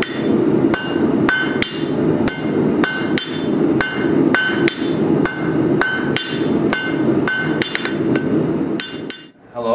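Hammer striking hot steel on an anvil at a forging pace of about two blows a second, each blow ringing, with a lower rushing noise underneath. The hammering stops shortly before the end.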